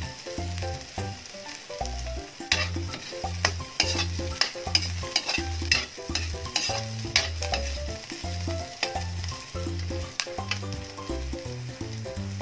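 Metal spatula scraping and clacking against a wok as sliced onion and garlic are stir-fried. The clacks come irregularly, many times over, above a steady sizzle.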